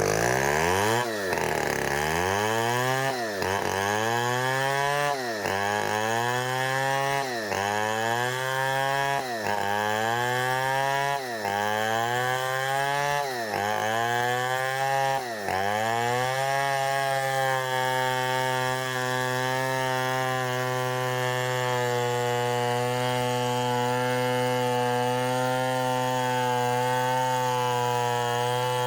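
Two-stroke chainsaw running at high revs while sawing timber for a squared post. For about the first half its pitch drops sharply and climbs back roughly every two seconds, then it holds a steady pitch.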